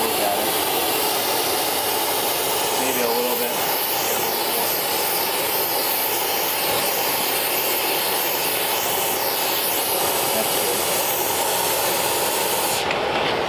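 Oxy-fuel torch flame hissing steadily as it heats a steering arm on a drop-axle spindle so the arm can be bent.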